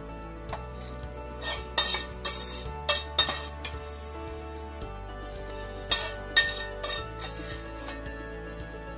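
Dry-roasted whole spices, chilies and grated coconut being tipped and spooned into a small grinder jar: a string of sharp clinks and rattles at irregular moments, the grinder itself not yet running. Soft background music with held chords plays underneath.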